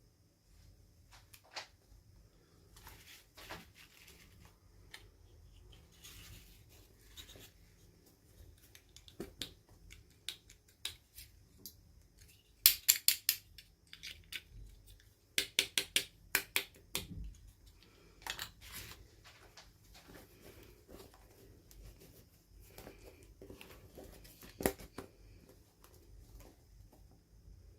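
Hands unboxing a small toy: light clicks and rustles of packaging, with two quick runs of sharp snapping clicks about halfway through, the loudest sounds.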